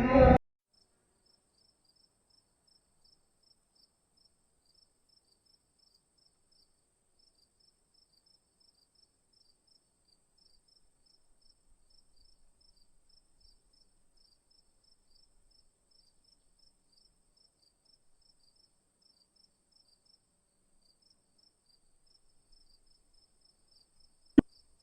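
Faint cricket chirping, a steady run of short high chirps at about two to three a second, over near silence. A single sharp click near the end.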